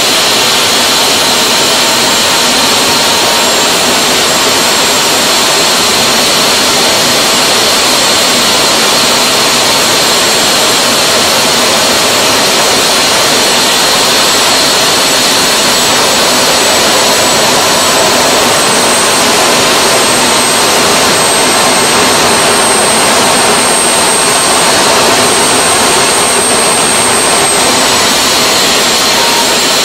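Homemade turbojet engine with an unlit afterburner fitted, running at power on a test stand: a loud, steady jet roar with a high whine over it. A thinner, higher whistle climbs slightly around the middle and cuts out near the end.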